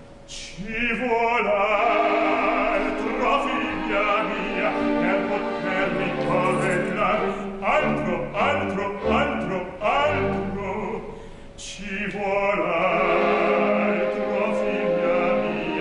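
Opera singing with orchestra: a male bass voice in a lively comic aria, with a brief lull about eleven seconds in.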